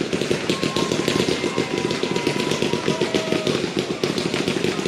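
Category F2 fireworks going off in a dense, continuous crackle of rapid small pops from crackling stars, with a few faint thin whistling tones in the middle.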